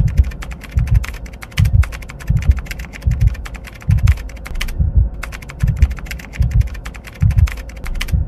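Rapid computer-keyboard typing clicks, a typing sound effect for on-screen text, with a short break about halfway through. Under it, a low thud repeats a little more than once a second.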